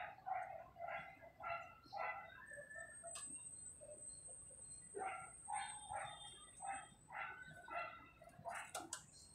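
A dog barking in two runs of short barks, about three a second, with a pause of a couple of seconds between them. A faint high whine sounds during the pause, and a few sharp clicks come near the end.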